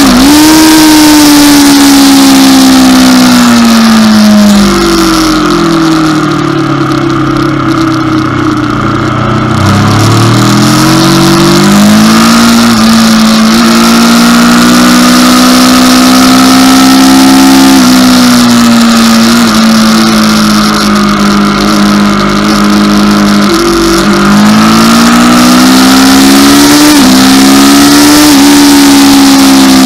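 Aprilia RSV4's V4 engine at high revs, heard from onboard the bike with wind rush over the microphone. The revs fall away steeply from about five seconds in, with downshift blips, as the bike slows for a corner. They climb again out of it and then step up and down through further gear changes near the end.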